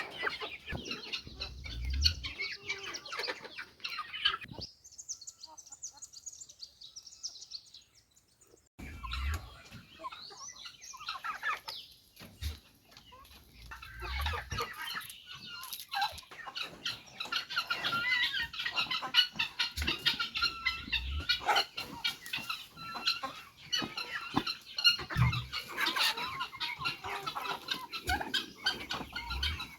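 A flock of chickens clucking and chirping, with scattered low thuds. The sound drops almost away for a few seconds about five seconds in.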